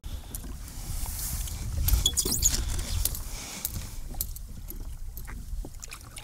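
Sounds aboard a fishing kayak: a low steady rumble with scattered light clicks and knocks.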